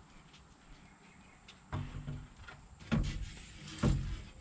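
Clunks and knocks of a replacement radiator and its parts being handled and fitted into a pickup's engine bay. After a quiet start come three louder knocks, about two, three and four seconds in.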